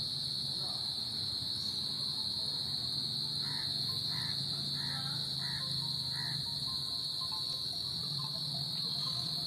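Steady, high-pitched insect trill from an insect chorus, unbroken throughout, over a faint low hum, with a few faint short chirps in the middle.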